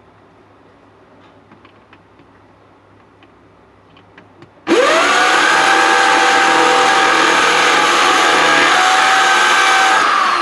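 A few faint clicks, then about halfway through a handheld electric power tool switches on. Its motor speeds up to a steady high whine, runs for about five seconds, then slows down near the end as it is let off.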